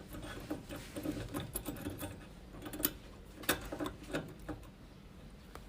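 Homemade chain wrench's metal chain links clicking and clinking irregularly as it is worked on a rusty bolt, with a few sharper clicks around the middle.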